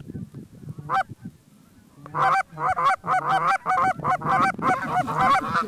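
Canada goose honks: a single call about a second in, then from about two seconds a fast, even run of two-note honks, roughly three to four a second.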